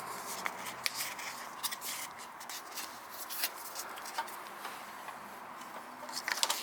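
Hands handling a roll of 120 film at an open camera: scattered small clicks and rustles, with a quick cluster of louder clicks near the end.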